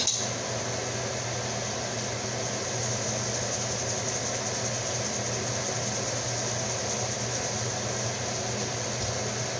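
Steady hum and whoosh of a ventilation fan, even and unchanging, with a light knock at the very start.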